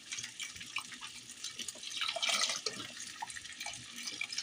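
Vegetable broth pouring from a carton into a stainless steel pot of sautéed vegetables, splashing over a fine crackling. The pour is loudest about two seconds in.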